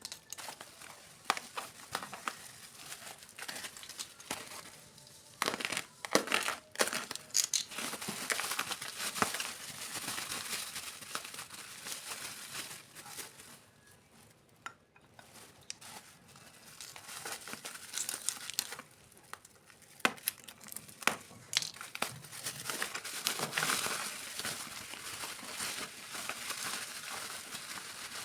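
Packaging crinkling and rustling as a parcel is handled and unwrapped, with scattered sharp crackles and some tearing. There is a brief lull about halfway through.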